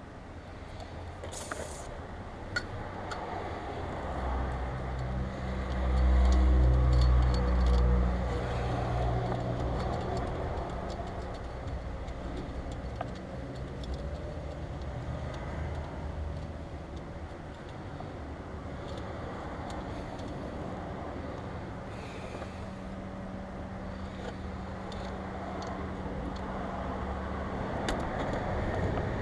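2012 Mercedes-Benz E350's 3.5-litre V6 running with a newly fitted idler pulley on its accessory belt, the repair meant to cure a whining noise. It swells louder for a few seconds a few seconds in, then settles to a steady hum.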